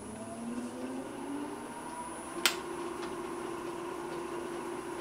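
Supermax 13x38 gap-bed lathe, its three-phase motor fed by a VFD, speeding up with a rising whine. A sharp click comes about two and a half seconds in, and after it the lathe runs on at a steady pitch.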